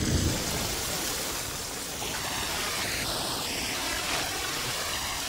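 Heavy rain pouring onto bare rocky ground, a steady hiss.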